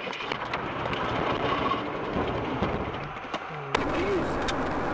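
Tyre and road noise inside a moving car on a wet highway, a steady hiss. About three-quarters of the way through, a sharp click, after which a different, steadier car-cabin drone carries on.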